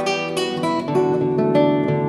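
Classical guitar played solo, fingerpicked: plucked single notes and chords ringing over bass notes, with several new notes each second.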